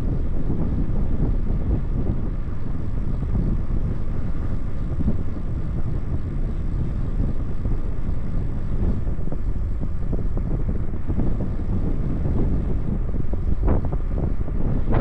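Steady low rumble of wind buffeting the microphone while riding an e-bike.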